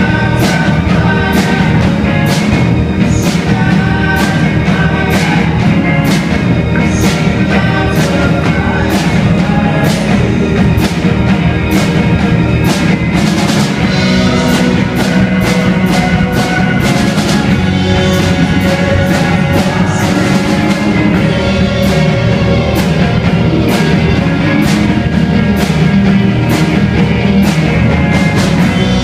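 Live rock band playing: drum kit keeping a steady beat under electric guitars and keyboard, all amplified.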